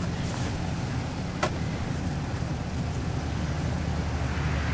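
Steady low rumble of a running vehicle engine, with one sharp click about a second and a half in.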